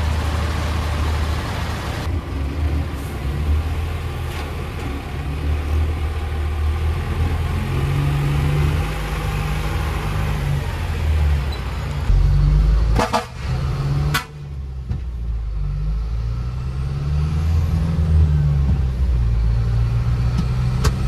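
Medium-duty tanker truck engine running, its pitch rising and falling as the truck pulls away and drives. A couple of sharp knocks sound about 13 seconds in.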